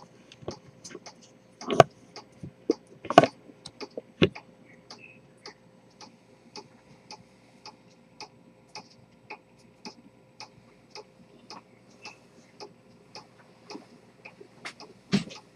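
Rose-gold pocket chronometer with an Earnshaw detent escapement ticking steadily, about two ticks a second. A few louder knocks come in the first few seconds and one near the end.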